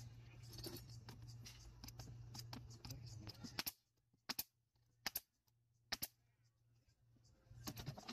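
Pneumatic nail gun firing four times in quick succession, a sharp clack every second or less, driving nails through a pine corner brace into a table leg. Before the shots there is a steady low hum with small clicks and handling noise, which stops abruptly.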